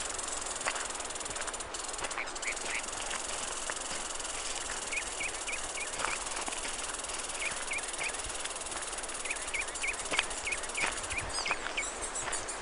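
Evening outdoor nature ambience: a steady high hiss with short chirps repeating in quick groups of three or four, and a few scattered clicks.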